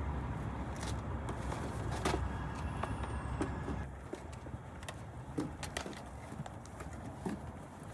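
Low vehicle rumble that drops away about four seconds in, with scattered light clicks and knocks.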